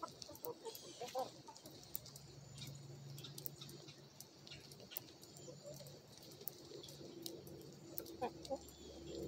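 Backyard hens clucking quietly while feeding, a faint low murmur, with scattered faint ticks.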